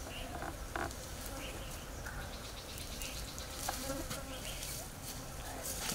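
A flying insect buzzing.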